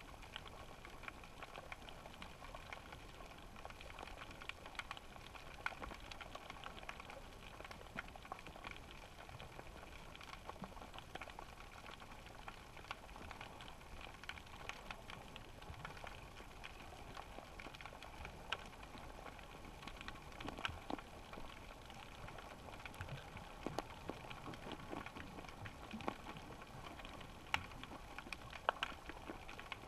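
Faint underwater ambience picked up by a GoPro in its waterproof housing: a steady muffled hiss with many scattered, irregular clicks and crackles.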